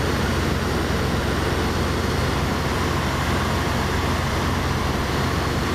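Light aircraft's engine and propeller running steadily in cruise, heard from inside the cockpit as an even drone with airflow noise.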